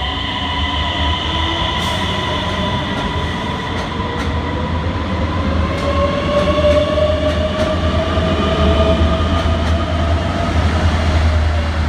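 Multiple-unit passenger train pulling away from an underground platform: a whine from its drive rises slowly in pitch as it gathers speed, over a steady low rumble of wheels and running gear that grows a little louder.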